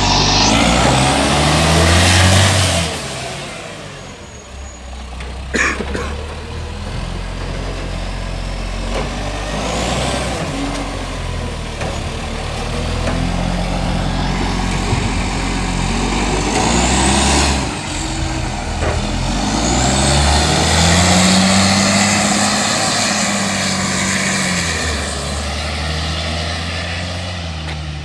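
Euro 6 garbage truck's diesel engine running and revving up and down, with the unusual sound of an exhaust leak. Stretches of air hiss come through, and there is one sharp click about five and a half seconds in.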